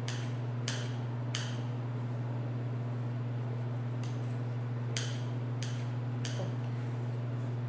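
Scissors snipping khubz flatbread into small pieces over a pot: about six short, crisp snips, irregularly spaced, over a steady low hum.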